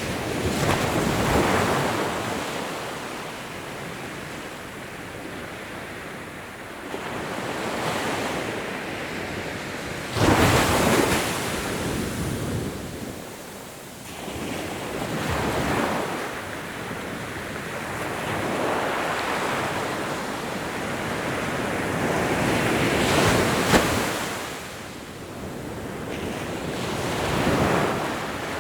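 Ocean waves breaking and washing up a beach, coming in surges every few seconds, the strongest about ten seconds in.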